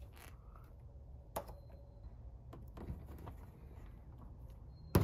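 Wire strippers working a thin underglow wire: a few faint clicks and snips, with one sharp click near the end, over a low steady hum.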